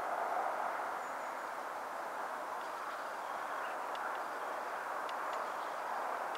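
A freight train's covered wagons rolling along the track at a distance: a steady, even rumble of wheels on rail. A few faint high ticks sound over it.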